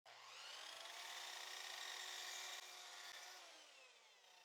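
Miter saw cutting a board: a faint, steady motor whine that falls in pitch and fades after about two and a half seconds as the blade winds down.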